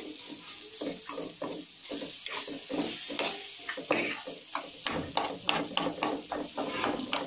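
Spatula scraping and chopping boiled potatoes against a nonstick kadhai in frying ghee, tomato and spices, with a light sizzle underneath. The scraping strokes come quicker in the second half.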